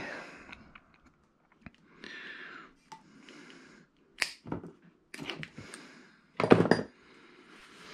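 Hands working a pull-start recoil starter and its cord: scattered short scrapes, rustles and clicks, with a louder knock about six and a half seconds in.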